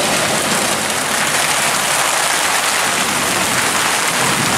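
Heavy rain pouring down in a steady hiss.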